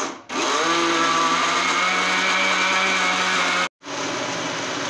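Electric countertop blender running under load, grinding frozen mango pieces and condensed milk into a purée. Its motor stops for a moment, restarts and rises in pitch, then cuts out briefly near the end and runs on a little quieter.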